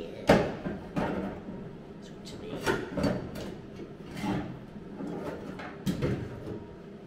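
Steel parts being handled against a car's bare steel body shell: a string of sharp metal clanks and scrapes. The loudest comes just after the start, with about five more spread over the next six seconds.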